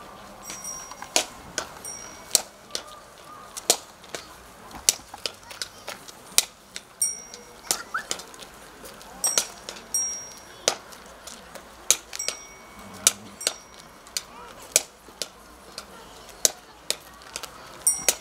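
A donkey's hooves clip-clopping unevenly on asphalt as it walks, one or two sharp hoofbeats a second. Some steps come with short, high metallic rings.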